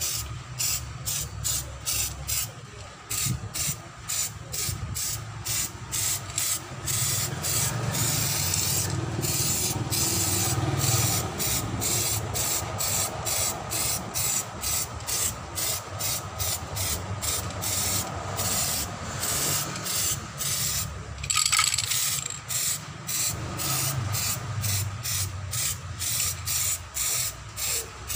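Aerosol can of Samurai metallic silver spray paint hissing in quick short bursts, about two a second, with one longer unbroken spray a third of the way in. The paint is being sprayed onto an alloy car wheel.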